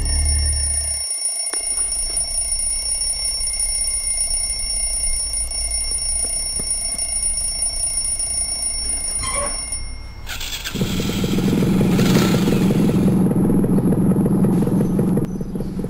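A quiet stretch of faint, steady, high-pitched tones over a low hum. About eleven seconds in, a loud, steady vehicle engine drone sets in.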